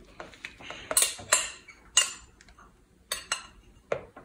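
A spoon scraping glue out of a plastic glue jug and knocking against the jug and a plastic bowl: a handful of sharp knocks and scrapes, the loudest about one and two seconds in.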